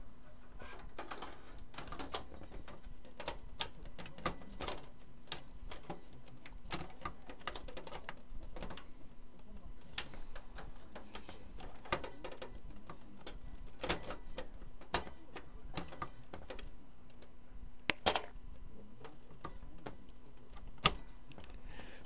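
Irregular clicks, taps and scrapes of an Asus Radeon HD 7770 graphics card and its metal bracket being worked into a desktop PC case's expansion slot, with a few sharper clicks near the end. A faint steady hum runs underneath.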